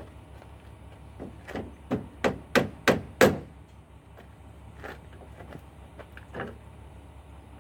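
A series of about six sharp knocks that come faster and louder, then two lighter knocks, as of a hand or tool striking a hard part.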